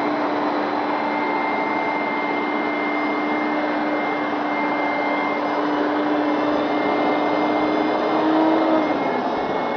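Hoover Max Extract carpet cleaner's suction motor running steadily, a dense rush of air with a constant whine. Near the end, one of the whine tones drops in pitch.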